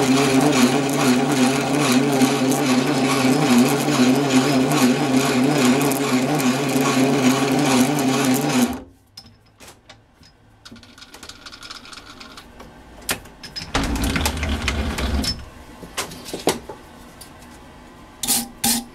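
Small metal lathe running steadily as a cut-knurling tool cuts a diamond knurl into a 25 mm brass bar. The lathe noise cuts off suddenly about nine seconds in. A quieter stretch with a brief low rumble and scattered clicks follows, and a quick run of sharp scraping strokes comes near the end.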